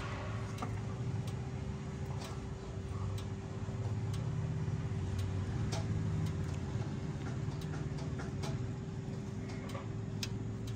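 Sparse, irregular small clicks and taps from hands working the wires and battery in a motorcycle's battery compartment, over a steady low hum.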